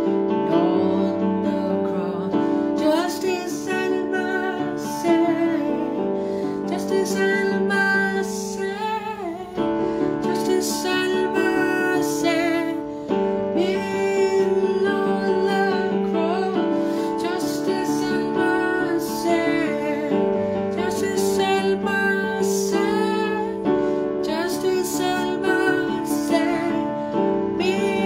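Slow worship ballad played on a Yamaha portable keyboard: sustained chords held steadily underneath, with a wavering melody above and no words.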